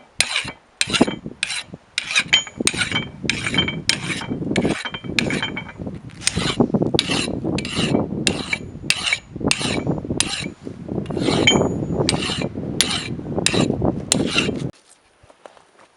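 Blacksmith's hammer striking steel on an anvil, about two ringing blows a second, over a steady rushing noise. The hammering stops abruptly near the end.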